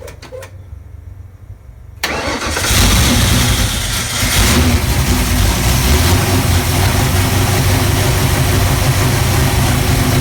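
Rebuilt 408 Windsor small-block Ford V8 (a stroked 351W) coming in loud about two seconds in, after a quieter low rumble, and running at a steady idle.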